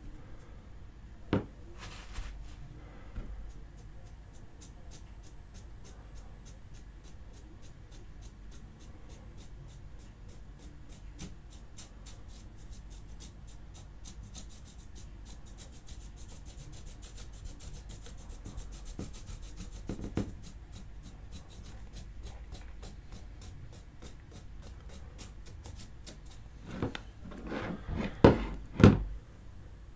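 Stiff paintbrush dry-brushing a plastic action-figure arm: a faint, scratchy rubbing of the bristles over the sculpted fur, with fine rapid ticks. Near the end a few louder knocks as the plastic arm is moved about on the cutting mat.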